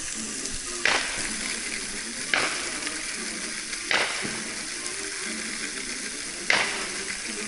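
Consumer fireworks going off: a steady crackling hiss broken by four sharp bangs, the first three about a second and a half apart and the last after a longer gap.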